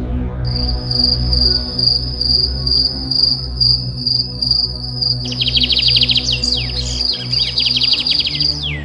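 Ambient soundtrack of a low sustained drone layered with cricket-like trilling. About five seconds in, rapid chirping and falling bird-like whistles join.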